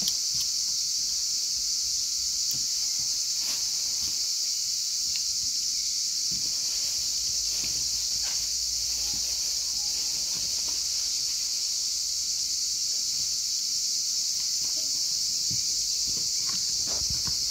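A steady, unbroken high-pitched insect chorus, like crickets or cicadas chirring. Under it are faint, scattered taps and scrapes of a knife on a plastic cutting board as raw chicken is deboned.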